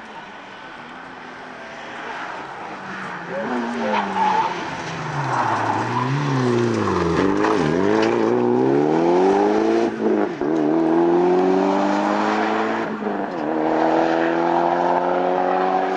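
Rally car engine at full effort, growing louder as it nears. Its note drops as the car slows into a bend, then climbs in several rising sweeps as it accelerates away through the gears.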